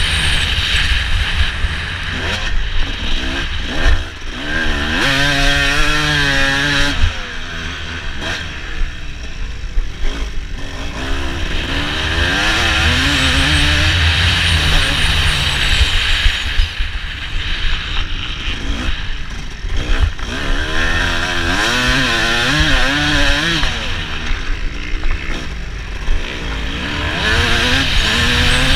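Motocross bike engine at race pace, the revs rising and falling again and again as the rider throttles and shifts around the track, over a heavy wind rumble on the bike-mounted microphone.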